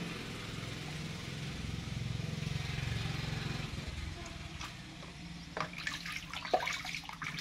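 Water splashing and sloshing in a plastic basin, with a few sharp knocks of plastic toys from about five seconds in, over a steady low hum.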